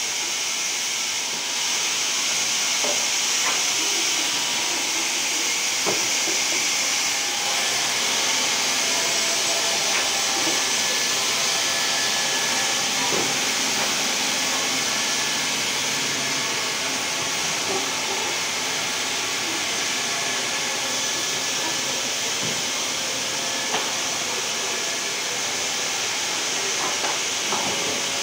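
Twin-head horizontal band resaw running, a steady high hiss with a few faint knocks now and then.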